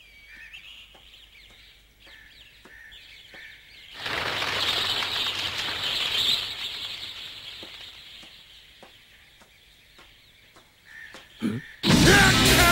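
Jungle ambience of faint bird chirps and regular ticks. About four seconds in, a gust of wind rushes in and fades away over the next few seconds. Near the end comes a short thud, and loud music starts.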